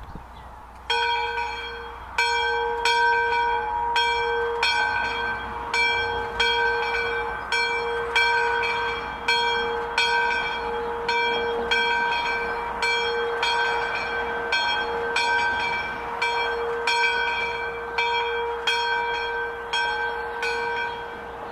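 Church bell tolling a single note, struck about once a second, each stroke ringing on into the next.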